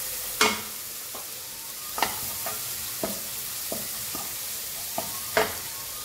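Wooden spatula stirring and scraping shredded cabbage and carrot in a frying pan over a steady sizzle of frying vegetables, with several sharp knocks of the spatula against the pan, the loudest about half a second in and near the end.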